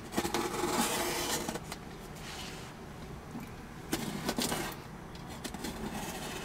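Knife blade slitting the packing tape on a cardboard box: a scraping rasp lasting about a second and a half, then shorter scrapes and clicks around four seconds in as the blade and box are worked.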